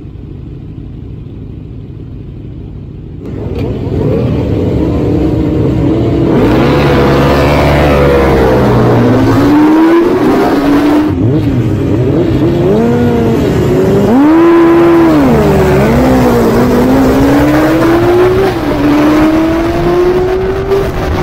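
A grid of 750 cc superbike racing motorcycles: engines idling, then revved up about three seconds in, and from about six seconds accelerating hard, the pitch climbing and dropping sharply again and again as they shift up through the gears.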